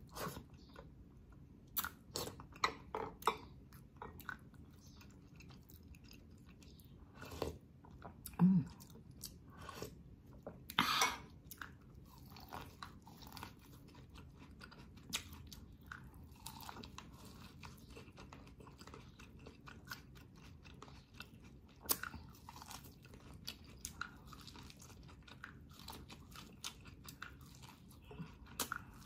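Close-up eating sounds: biting into and chewing boiled corn on the cob, in short irregular wet smacks and clicks, with a few louder mouth noises about eight and eleven seconds in.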